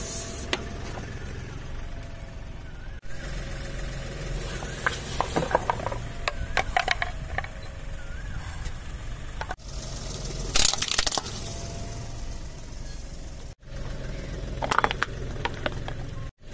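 A car tire rolling slowly over hard plastic toys on asphalt, with several bursts of cracking and crunching as the plastic breaks, over a low engine and tire rumble.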